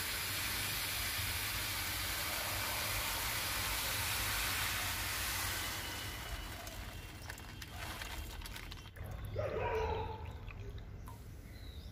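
Granulated sugar pouring from a plastic bag into a steel pot, a steady hiss that tapers off after about six seconds. About ten seconds in, water poured from a plastic bottle into a steel measuring cup gurgles briefly.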